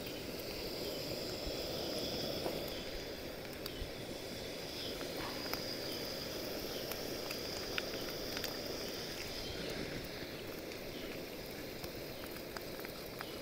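Chopped onion and green chillies frying in hot oil in a kadhai: a steady sizzle with small scattered crackles and clicks.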